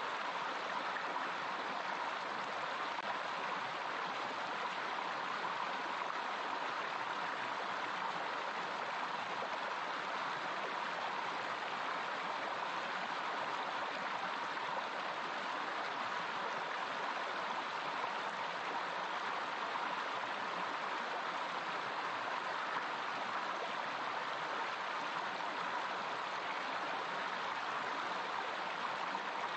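Rushing water, a steady even rush with no breaks or changes.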